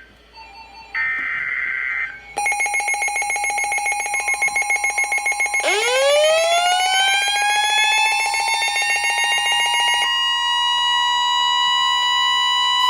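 Emergency Alert System tones on NOAA Weather Radio, signalling a severe thunderstorm warning. A one-second burst of the digital SAME header chirps, then a fast-pulsing electronic alarm beep starts about two and a half seconds in. Around six seconds a siren-like tone sweeps up and settles into a steady tone near 1 kHz, which holds on alone after the pulsing stops.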